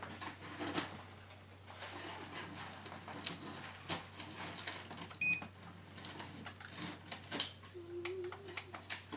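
Scattered clicks, taps and knocks of objects being handled, with one short high electronic beep a little past five seconds in and a sharp click about seven seconds in.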